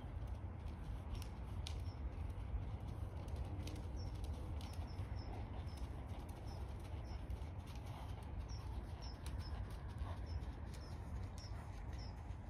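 A small bird chirping over and over in short high notes, over a low steady rumble, with the soft, scattered hoof-falls of a horse walking on an arena surface.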